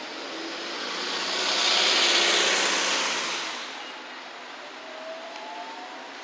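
A vehicle passing: a rushing noise swells to a loud peak about two seconds in and fades away by four seconds, with a thin high whine that rises and then drops.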